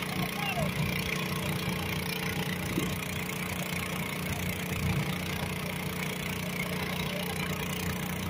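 Garden pulling tractor's small engine idling steadily while hooked to the pulling sled, waiting to start its pull.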